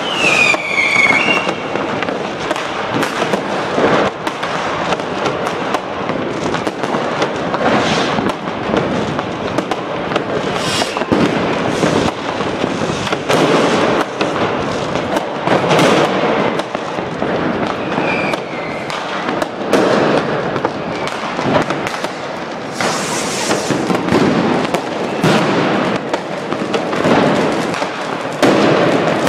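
Street fireworks: rockets and firecrackers bang and crack without a break, many overlapping. A falling whistle from a whistling rocket sounds right at the start, and a short high hiss comes a little after twenty seconds.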